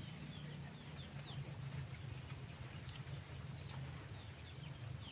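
Birds chirping faintly: many short, high chirps that fall in pitch, repeating over a low steady hum.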